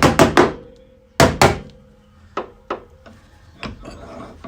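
Quick hammer blows on the dented sheet-metal body panel, about six a second, stopping half a second in. Two more heavy blows follow just after a second, then a few lighter scattered knocks.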